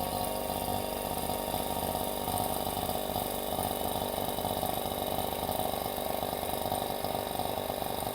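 Electric vacuum pump running steadily with a constant hum, evacuating a vacuum jar that holds water.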